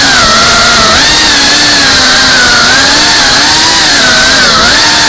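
Brushless motors and propellers of a GEPRC CineLog 35 FPV drone whining loudly, heard from on board, the pitch wavering up and down with constant throttle changes over a steady hiss.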